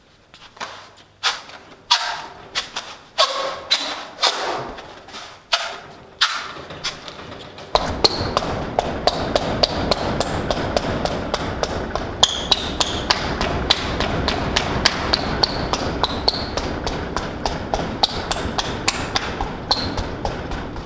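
Hand thumps and knocks as a foil-faced rigid foam insulation board is pushed and tapped into place in a steel wall framing. About eight seconds in, a steady rush of noise dotted with rapid clicks starts and carries on.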